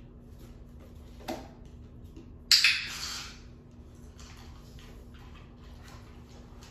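A puppy's paws scuffing and scraping on a small wooden board on a vinyl floor, with a brief knock and then a louder sharp clatter about two and a half seconds in.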